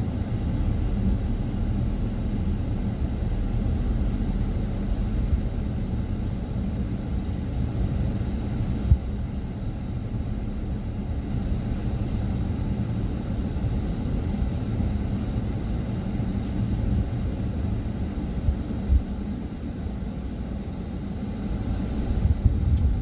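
A steady low rumble, with a couple of brief knocks.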